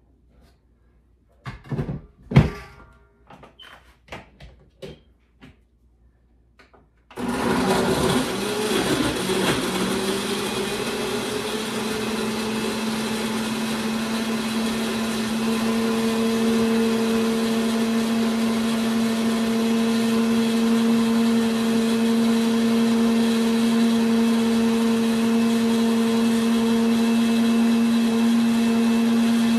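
A few knocks and clatters, then about seven seconds in a countertop blender starts and runs steadily to the end, blending a batch of pineapple and cucumber. Its motor pitch climbs a little over the first few seconds, then holds steady.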